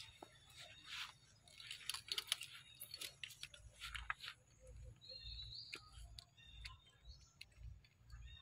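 Faint animal sounds: a flurry of sharp clicks and rustles in the first half, then short high chirping calls in the second half.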